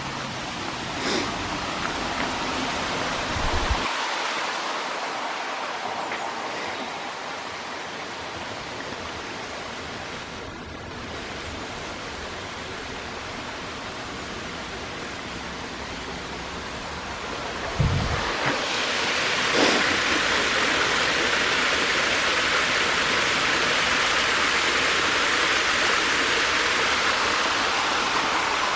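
A shallow stream running and splashing over stones, a steady rushing hiss of water. It grows louder about two-thirds of the way through. A couple of low thumps, one near the start and one just as the water gets louder.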